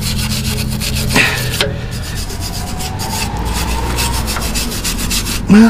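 Hand wire brush scrubbing in quick back-and-forth strokes over a freshly stick-welded steel shock mount, cleaning slag and spatter off the bead.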